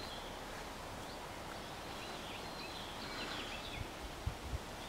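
Quiet rural outdoor ambience with faint bird chirps in the middle, and a few brief low thumps of wind on the microphone near the end.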